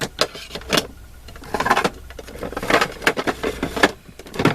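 Stenciling supplies being handled on a craft desk: a sharp click, then several short bursts of scraping and rustling.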